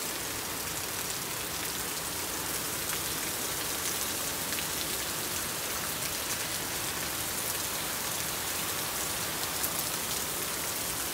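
Heavy rain pouring onto wet asphalt pavement: a steady, dense hiss with the sharp ticks of individual drops splashing through it.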